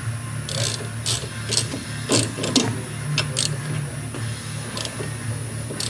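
Irregular clicks and clinks of hand tools at work on the car's rear suspension, bunched together over a few seconds, over a steady low hum of shop machinery.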